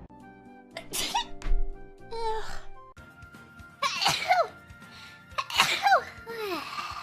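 A string of sneezes from young women, short sharp bursts a second or two apart, some ending in a high falling squeak, over soft background music.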